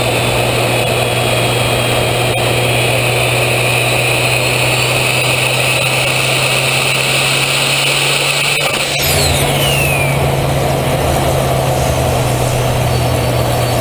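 Turbocharged Mitsubishi 4G63T four-cylinder idling steadily, heard right at a large turbo's open, screened compressor inlet as air is drawn in. A faint high whine drifts slowly down in pitch, and about nine seconds in a sharper whine sweeps quickly downward.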